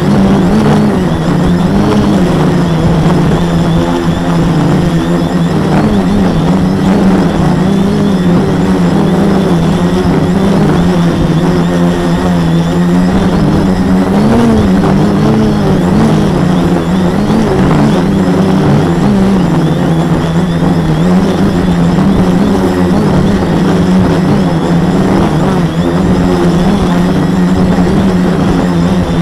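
Brushless MultiStar 2212 920kv motors spinning 10x4.5 propellers on a 450 quadcopter in flight, heard from a camera mounted on its frame: a loud, steady buzzing hum whose pitch wavers up and down, rising and falling briefly about halfway through.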